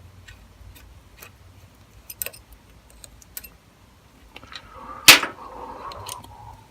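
Scattered small metal clicks and clinks of parts and tools being handled, with one loud metallic clank about five seconds in that rings briefly.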